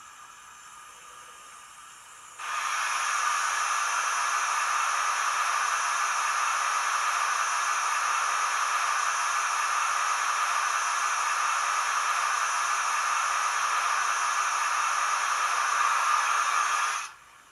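Model steam locomotive sound decoder, a LokSound v5 micro playing a Baldwin steam sound file through a small sugarcube speaker, giving a steady hiss of escaping steam. The hiss starts suddenly a couple of seconds in, holds steady, and cuts off sharply near the end.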